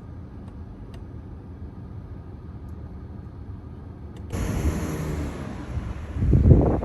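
A car's low running rumble. About four seconds in, the sound changes abruptly and a high hiss joins it, and near the end a louder low rumble swells up.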